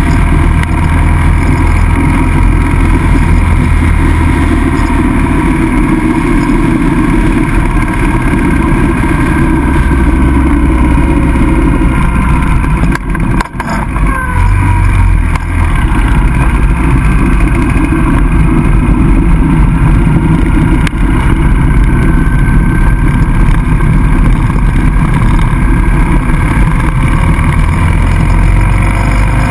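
Motorcycle engine running at road speed, heard from on the rider's own bike together with heavy wind rush. The sound dips briefly about halfway through, then carries on.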